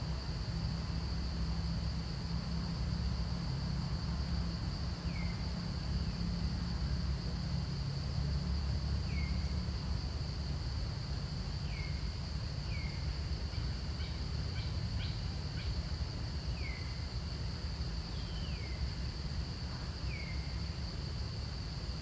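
Forest ambience: a steady high insect drone over a low rumble, with a short, downward-sliding bird call repeating every second or two from about five seconds in, and a brief patter of clicks about two-thirds through.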